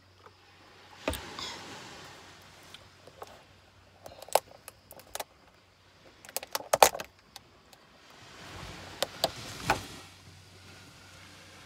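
Clear plastic sandwich box being handled and opened: groups of sharp plastic clicks and crackles, the loudest cluster a little past the middle, with a softer rustle near the end.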